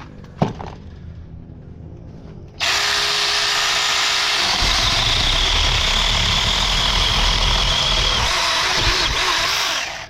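Saker 4-inch cordless electric mini chainsaw starting abruptly about two and a half seconds in and running steadily for about seven seconds with a high whine, cutting into wood, then stopping just before the end. A single knock about half a second in.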